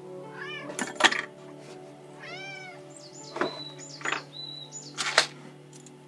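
A domestic cat meowing twice, each call rising and falling in pitch. Several sharp knocks come with it, the loudest about a second in and about five seconds in.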